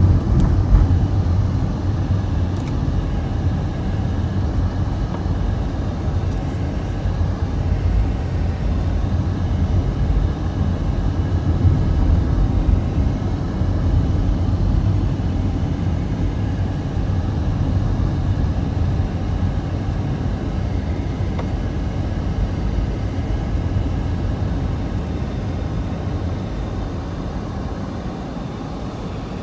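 Steady low rumble of road and engine noise heard from inside a car driving along, easing a little near the end as the car slows behind traffic.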